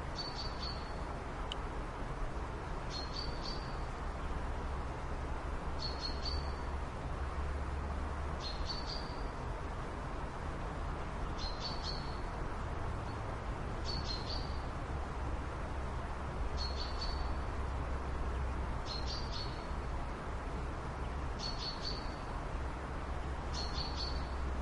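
A bird repeating the same short, high call about every two and a half seconds, each a quick stuttering note followed by a brief whistle, over a steady low rumble of background noise.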